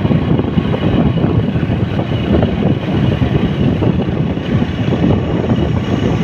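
Steady rumble of a moving road vehicle, with wind buffeting the microphone.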